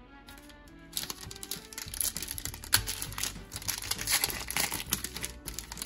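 Foil Panini Mosaic trading-card pack crinkling as it is handled and torn open, starting about a second in, over soft background music.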